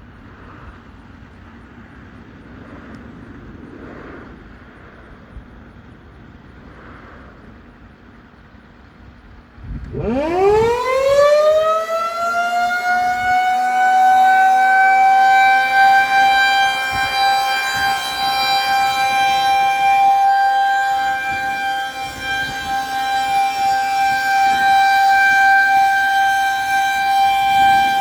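Federal Signal 2001-130 electromechanical outdoor warning siren starting its weekly test: about ten seconds in it winds up in a fast rising whine and settles into a steady, high-pitched tone, the opening of a one-minute steady alert signal.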